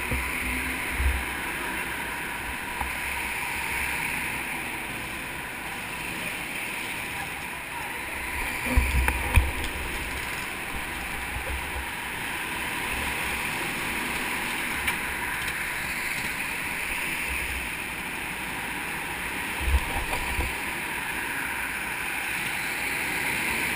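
Go-kart engines running in an indoor karting hall, heard as a steady noise, with a few low knocks about nine and twenty seconds in.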